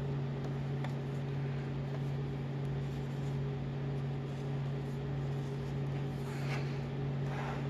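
A steady low hum with several overtones runs throughout. Over it, a few faint rustles of paper pages being handled, mostly near the end.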